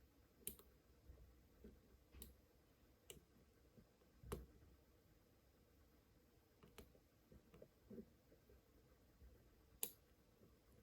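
Lock picks working inside an Almont Re-Key padlock: about seven faint, sharp metallic clicks at irregular intervals, the sharpest near the end.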